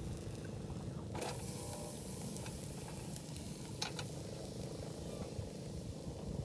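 Whole fish grilling in a wire basket over charcoal, sizzling, over a steady low rumble. Two sharp clicks, about a second in and near four seconds, as the knife touches the fish and the wire grill.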